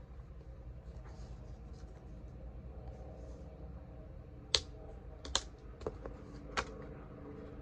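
Hardcover notebook being handled, with a few sharp snaps and taps in the second half as its elastic closure band is pulled and let go against the cover. A low steady hum runs underneath.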